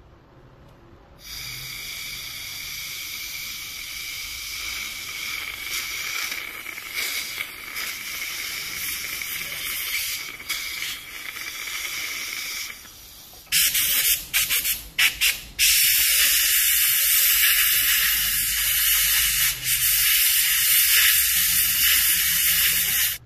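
Dental high-speed air-turbine handpiece running with its water spray, a hissing whine. A steadier, quieter run of about ten seconds is followed by a short pause, several brief on-off bursts, and then a louder continuous run.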